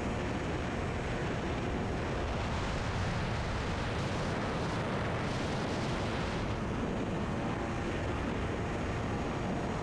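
Steady rush of wind on the microphone mixed with road and engine noise from a motorbike being ridden, with no distinct engine tone standing out.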